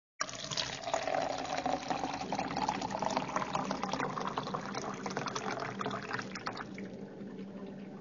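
Water pouring into a glass: steady splashing that starts suddenly and becomes softer and duller near the end.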